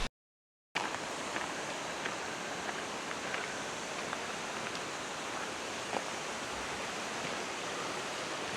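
Steady rush of falling water from a waterfall. The sound drops out to silence for about half a second just after the start.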